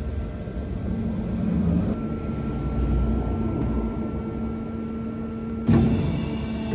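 Diamond-1000T beam band sawing machine running: a steady mechanical hum with a thin whine, and a sudden clank near the end.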